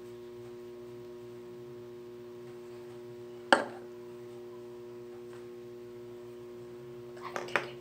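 A steady hum of several fixed tones, with one sharp knock about three and a half seconds in and a few quick clicks near the end.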